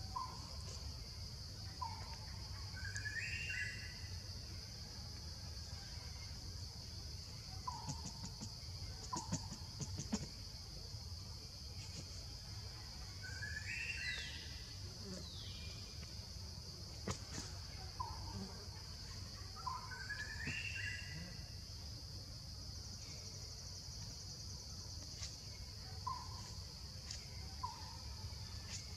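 Forest ambience: a steady high insect drone with birds calling over it. Short single call notes come now and then, and a few times a bird gives a quick phrase of notes stepping down in pitch.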